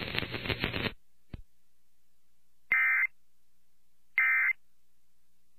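Emergency Alert System end-of-message code: short bursts of SAME digital data tones, each about a third of a second long and about a second and a half apart. Two are heard, and a third starts at the very end. Before them, about a second of crackly radio-feed noise cuts off.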